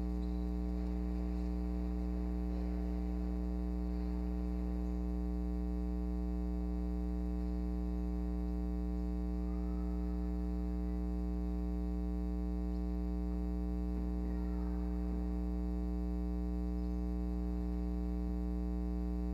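Steady electrical mains hum with its stack of overtones, unchanging throughout, with faint movement sounds beneath it.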